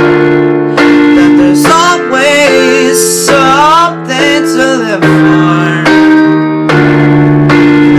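Music: held instrumental chords changing about once a second, with a wordless sung line gliding up and down in the middle.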